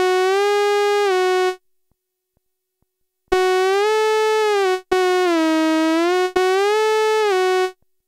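Malevolent analogue synthesizer sounding a single buzzy held note that is bent up in pitch with its joystick and eased back down. The note stops about a second and a half in. After a short pause it is played three more times, each time bent up and back.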